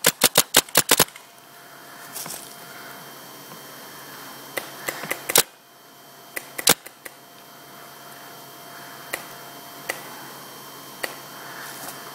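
Paintball markers firing. A rapid burst of about seven shots comes in the first second as cover fire, then scattered single shots follow through the rest.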